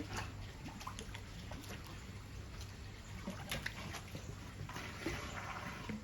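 Water trickling and splashing faintly, with scattered small clicks and knocks over a low steady hum.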